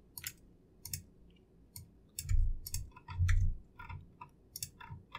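Scattered clicks from a computer keyboard: a dozen or so separate keystrokes, with two duller low thumps a little over two and three seconds in.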